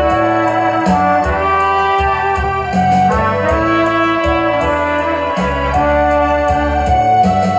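Trumpet playing a slow hymn melody in long, held notes, over an accompaniment of low bass notes and a light, steady percussion tick.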